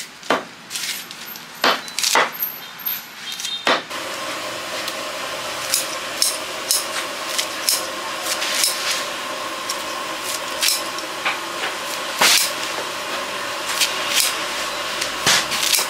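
Scissors snipping through bunches of leafy greens: a string of sharp, irregular clicks. A steady mechanical hum with a held tone comes in about four seconds in and carries on under the snipping.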